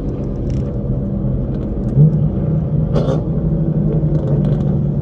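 Car engine running steadily at cruising speed with road rumble, heard from inside the cabin of the following car. About three seconds in there is a short knock.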